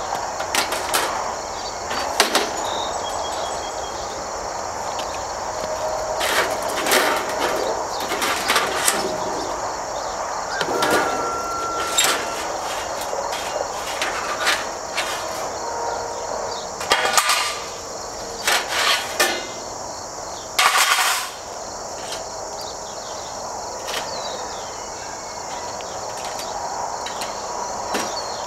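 Galvanized sheet-metal Best Nest Box panels being handled and fitted together by hand: irregular metallic clanks, clicks and rattles, some in quick clusters. A steady high chorus of insects runs underneath.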